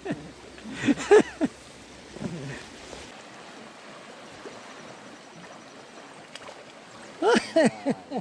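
Muddy, rain-swollen creek rushing steadily past the bank, with short bursts of a man's voice about a second in and again near the end.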